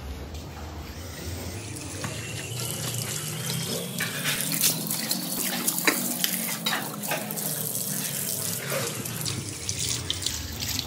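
Water running from a tap into a kitchen sink, starting about two seconds in, splashing onto onions in a steel bowl and then over a knife and hands being rinsed, with a few light knocks and splashes.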